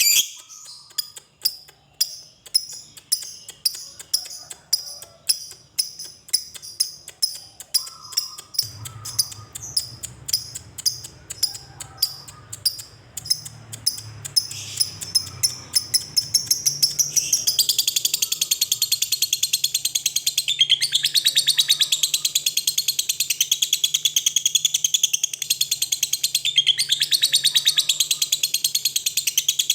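Lovebird calling: sharp single chirps that come faster and faster over the first half, then run together about halfway through into a long, continuous rapid chatter, the drawn-out 'ngekek' trill.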